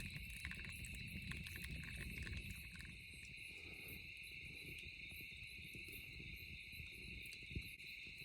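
A steady, unbroken insect chorus trilling at one high pitch, faint, over a low rumble and a few light clicks.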